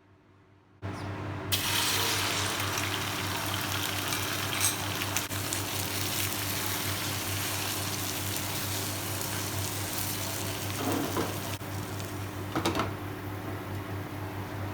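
Omelette frying in a pan, a steady sizzle that starts abruptly about a second in, with a low steady hum underneath and a couple of short knocks near the end.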